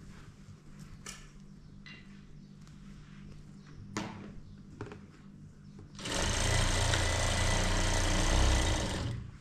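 Jack industrial lockstitch sewing machine stitching in one steady run of about three seconds, starting about six seconds in. Before it, only a faint hum and a few soft clicks as the fabric is handled.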